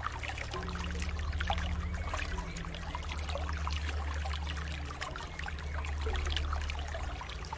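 Water trickling and splashing steadily in many small drips over a low, held drone of background music whose notes change slowly.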